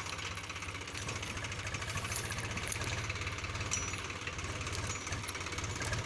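A tractor's diesel engine running steadily, with a rapid, even knocking beat.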